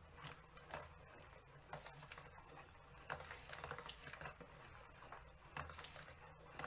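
Faint, irregular light clicks and scrapes of a spoon stirring thick tomato sauce in a large aluminium pot.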